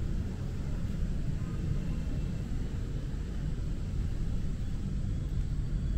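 Steady rain ambience heard from under a bridge: an even low rumble with little high patter of drops.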